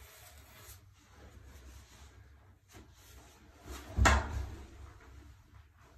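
Faint handling noise as pebble tile is pressed into mortar, then one sharp knock about four seconds in.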